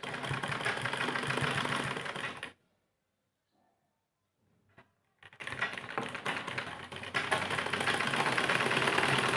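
Domestic sewing machine running in fast, even needle strokes as two sleeve pieces are stitched together. It stops about two and a half seconds in, falls silent for nearly three seconds, then starts stitching again about five seconds in.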